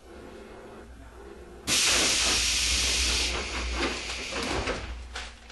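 Compressed air venting from a stopped electric train with a sudden loud hiss, as its air brakes or pneumatic doors work at the station. It starts abruptly about a second and a half in, holds for a second or so, then dies away with a few light knocks.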